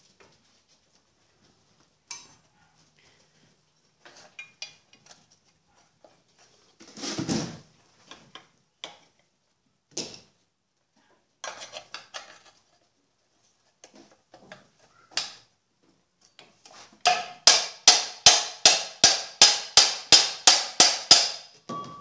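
Hammer striking the shaft of an Electrolux LT12 washing machine transmission to drive it out through its bearings. Scattered metal knocks and clanks come first, then a quick run of about fourteen ringing metal strikes, roughly three a second, starting about seventeen seconds in.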